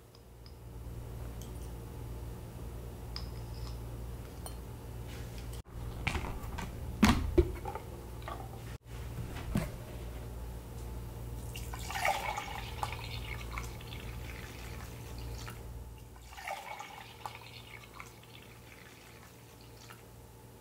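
Blended green lemonade poured into a glass measuring jug, splashing in two spells, after a few sharp knocks of glass on wood about seven seconds in, which are the loudest sounds. A steady low hum runs underneath.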